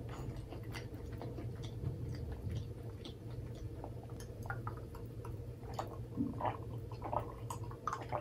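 Close-miked mouth sounds of a person chewing with her mouth closed: scattered soft wet clicks and smacks over a low steady hum.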